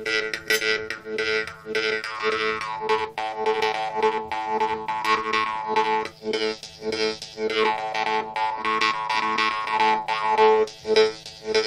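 Jaw harp being plucked in a steady rhythm, several twangs a second over a continuous drone, with the overtones gliding up and down as the mouth shape changes.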